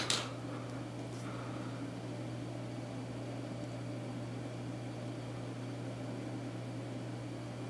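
A steady low background hum with a faint even hiss, and a brief rustle of handling right at the start.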